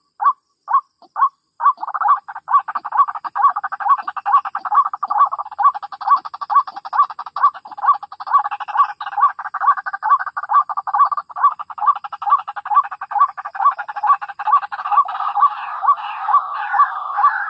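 White-breasted waterhen (ruak-ruak) calls: a fast, evenly repeated croaking note about three times a second. About two seconds in, a dense unbroken layer of calling joins it and carries on with it.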